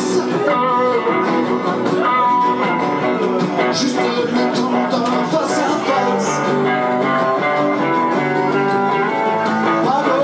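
Electric guitar and acoustic guitar playing together live, a steady song accompaniment with picked notes over strummed chords.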